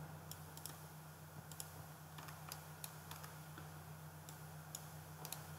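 Faint, irregular clicks of a computer mouse and keyboard, about a dozen of them, over a steady low hum.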